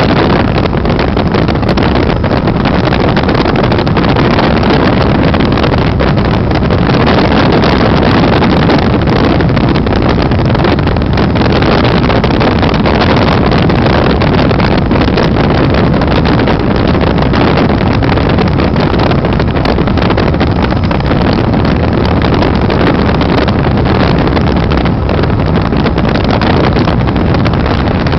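Helicopter in flight: loud, steady engine and rotor noise.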